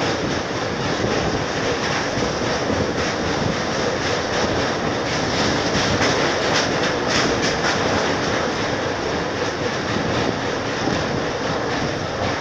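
Train running steadily over the rails, a continuous rumble with no letup.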